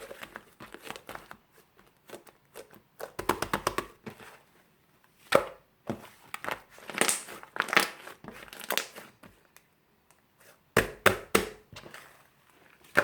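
Crinkling and crumpling handling noise in irregular bursts, with sharp crackles and short quiet gaps between them.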